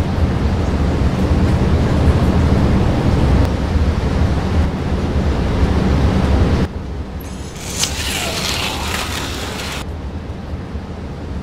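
HO-scale slot cars running on a plastic track: a steady whirring rumble with a low hum, which drops off suddenly about seven seconds in. A shorter, higher-pitched scratchy whir follows for about two seconds.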